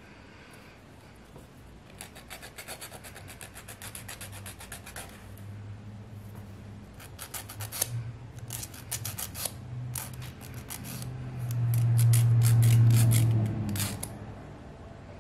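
A nail file rasps back and forth in quick, rhythmic strokes, shaping soft gel full-cover nail tips. A low steady hum swells up and is loudest about twelve seconds in.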